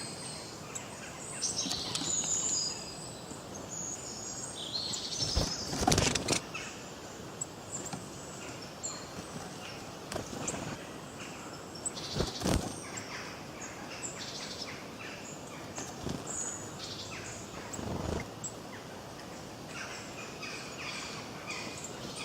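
Songbirds chirping and singing in a busy chorus of short calls and trills, over a steady background hiss. Three short, louder noises break in, about six, twelve and eighteen seconds in.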